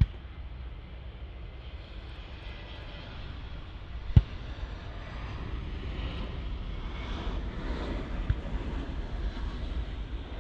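Airbus A320-200 jet engines on final approach, a steady rumble with a whining hiss that grows louder as the airliner comes closer. A sharp click about four seconds in and a fainter one about eight seconds in.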